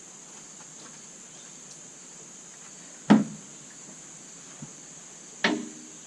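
Hydraulic hose quick-couplers on a John Deere 110 backhoe loader snapping together as the supply and return lines are reconnected: two sharp metal clacks about two and a half seconds apart, the second with a short ring.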